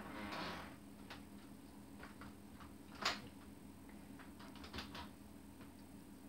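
Faint, irregular ticking of freezing rain striking a window, with one sharper click about three seconds in, over a steady low hum.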